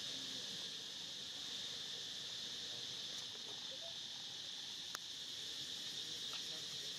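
Steady, even high-pitched buzz of an insect chorus, crickets or similar, with a single sharp click about five seconds in.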